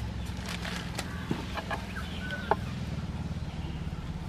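A hen clucks a few short notes, with sharp clicks from raw jackfruit being sliced on a boti's fixed blade, the loudest about two and a half seconds in, over a steady low hum.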